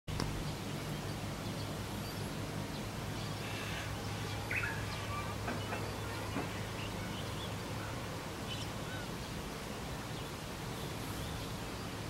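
A few faint, short bird calls, mostly between about three and five seconds in, over a steady low hum of background noise.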